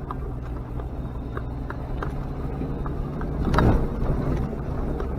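Off-road vehicle engine running at low revs with a steady low rumble while driving a rough track, with scattered knocks and rattles and one louder rushing swell about three and a half seconds in.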